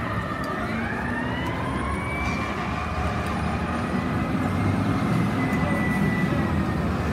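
Fire truck siren wailing: its pitch climbs about half a second in, then falls slowly over the next few seconds. Under it runs the low rumble of city traffic.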